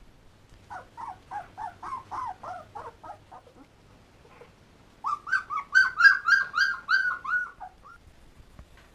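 Young German Shepherd puppies whining and squealing in quick, repeated high cries, about five a second. There are two bouts: the second, starting about five seconds in, is louder and higher-pitched.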